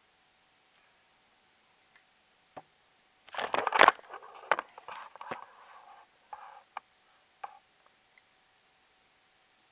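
Handling noise: a light knock, then a loud rustling clatter about three and a half seconds in as the camera is moved, followed by a couple of seconds of scraping and a few single clicks.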